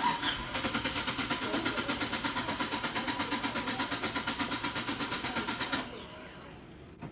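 United Bravo's engine cranking on the starter motor in a steady rapid rhythm for nearly six seconds without firing, then the starter is released. It is a long-crank no-start: the injectors get no pulse because the ECM's main line has burnt out from a wiring short.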